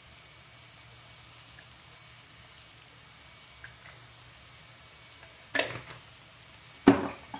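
Chicken, onion and mushrooms frying quietly in a pan, a faint sizzle over a low steady hum. Two sharp knocks come near the end, about a second apart.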